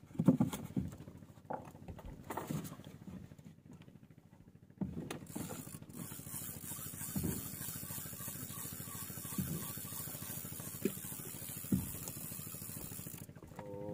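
Spinning reel being cranked: a steady whirring hiss from about five seconds in until near the end, over a low steady engine hum, with a few scattered knocks on the wooden boat deck.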